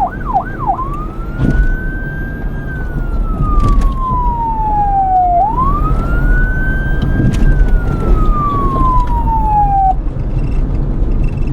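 Police car siren switching from a fast yelp to a slow wail about a second in: two long rises and falls, then it cuts off near the end. A low vehicle rumble runs underneath and carries on after the siren stops.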